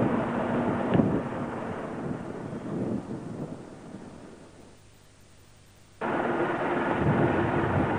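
Engine of a fire-brigade ladder truck running steadily, with a knock about a second in. The sound fades away over a few seconds, then cuts back in abruptly about six seconds in.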